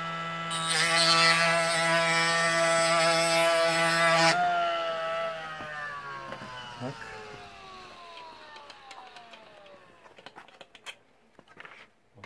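Motorised ski edge sharpener with a diamond disc running with a steady hum. It grinds along the ski's steel edge with a dense hiss from about half a second in to about four seconds, an even grinding sound the sharpener judges as a sign of a good edge. Then the motor switches off and winds down, its pitch falling over several seconds, followed by a few faint clicks.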